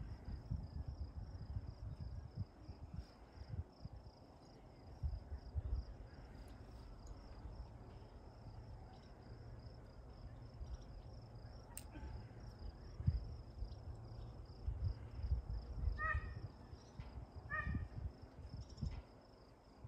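Crickets chirping in a steady pulsing trill, over an irregular low rumble. Two short pitched calls sound near the end.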